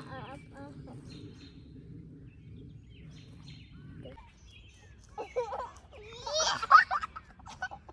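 A young child's high-pitched voice squealing and babbling without clear words in the second half. Faint bird chirps sound earlier.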